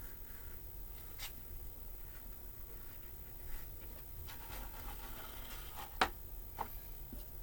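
Knife scratching and scoring through sheet gasket material in short, irregular strokes, with one sharp tick about six seconds in.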